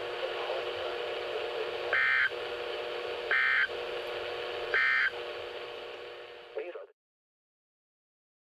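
Emergency Alert System end-of-message tones from a NOAA Weather Radio receiver: three short bursts of digital data screech, each about a third of a second and about a second and a half apart, marking the close of the test alert. A steady radio hiss with a low hum runs underneath, and the audio cuts off to silence about seven seconds in.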